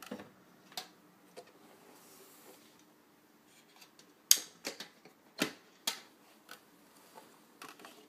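Metal wire toggle latches on a Hoover C2818 tub vacuum's steel bucket being unclipped by hand: scattered sharp metallic clicks, with a run of louder clacks about four to six seconds in as the latches snap free and the motor head is handled.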